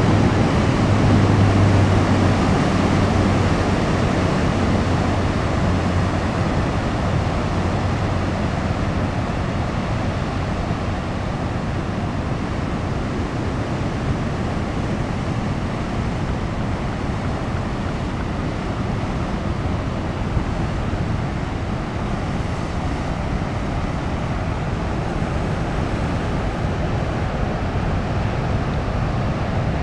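Ocean surf at a king tide: a steady wash of breaking waves and spreading foam, a little louder in the first few seconds, with wind buffeting the microphone.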